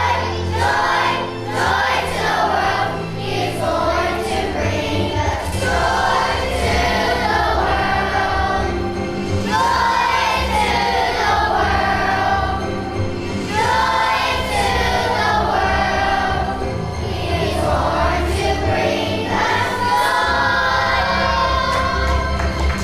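Children's choir singing a Christmas song in unison over an instrumental accompaniment with a steady bass line.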